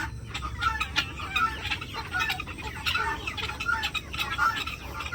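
Domestic chickens clucking, many short calls overlapping with one another.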